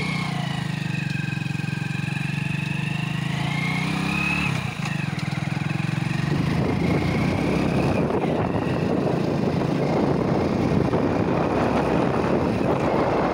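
Hero Splendor motorcycle's single-cylinder four-stroke engine running as the bike rides off and picks up speed, with a brief break in the engine note about four and a half seconds in. From about six seconds in, wind noise rushing over the microphone grows loud alongside the engine.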